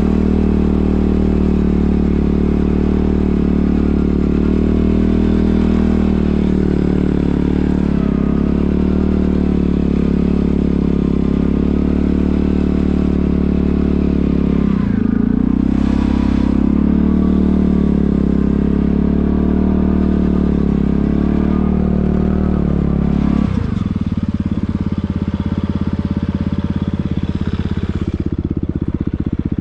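Quad bike (ATV) engine running under way, its pitch wavering with the throttle and briefly dipping and rising midway. About three-quarters through it drops abruptly to a steady, evenly pulsing idle.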